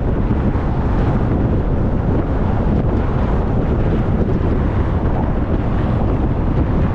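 Car driving at speed: steady wind rushing over the microphone mixed with road noise.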